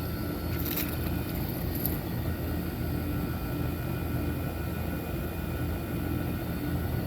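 Several Trane outdoor air-conditioner condensing units running together: a steady hum of compressors and condenser fan motors.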